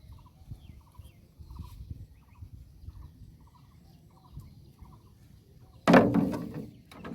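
Birds calling over and over in short rapid trills, every half second or so. About six seconds in a loud, noisy burst lasting under a second covers them.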